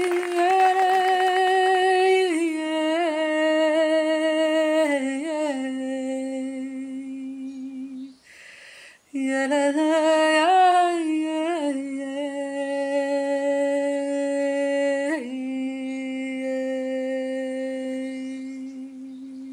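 A single voice singing a slow, wordless melody in long held notes that slide gently between pitches. It breaks off briefly about eight seconds in for a breath.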